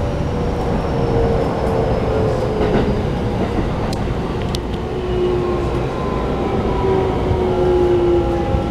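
Keikyu New 1000 series electric train with Toshiba IGBT-VVVF traction equipment, heard from inside the passenger car. Steady running noise with a motor whine of several tones that slowly falls in pitch as the train slows, and a few faint clicks.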